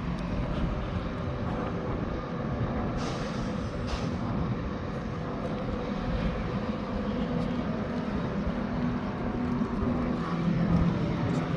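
Steady low engine rumble with a droning hum that grows louder near the end.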